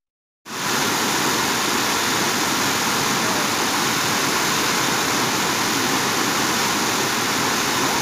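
Waterfall pouring onto rocks close up: a loud, steady rushing of water that starts abruptly about half a second in.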